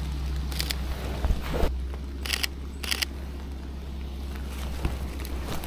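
Four short camera shutter clicks, spread over the first three seconds, over a steady low rumble.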